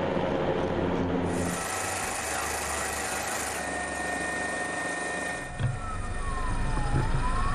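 Helicopter in flight: steady engine and rotor noise with a high turbine whine. About five and a half seconds in there is a thump, followed by a tone that slides down and then back up.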